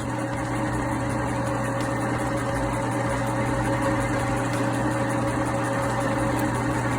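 Metal lathe running steadily with a steady hum, its carbide tool turning the edge of a nut to a bevel; the carbide insert is worn and due for changing.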